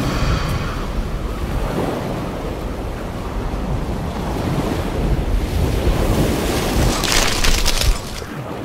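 Steady rushing wind and ocean surf noise, heavy in the low end, with a brighter hissing surge about seven seconds in.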